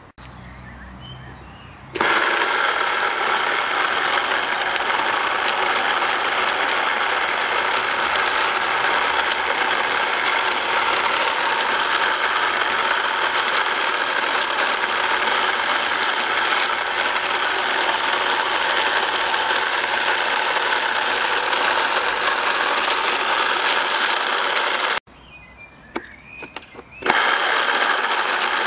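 WOLF-Garten battery-powered hand spreader running: its small electric motor and spinner disc whirr steadily as it throws lawn-fertilizer granules. It starts suddenly about two seconds in, cuts out for a couple of seconds near the end, and starts again.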